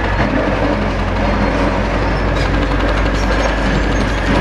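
Demolition excavator's diesel engine running steadily.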